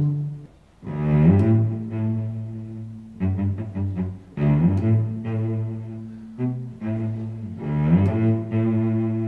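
Background music of low bowed strings playing long held notes in slow phrases that swell and fade.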